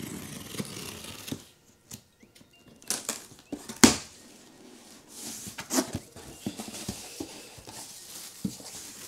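Cardboard shipping box opened by hand. Packing tape is scraped and split along the seam, and the flaps are pulled back with one sharp crack just under four seconds in. After that come cardboard scraping and a rustle of plastic wrap around the wheel, with a few smaller knocks.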